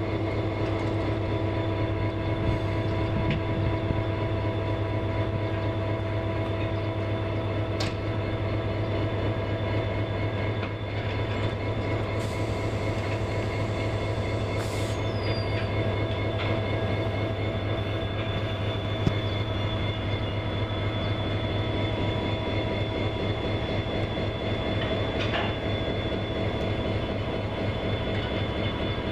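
EMD HGMU-30-R diesel-electric locomotive idling steadily: a constant low engine hum with a steady whine layered over it.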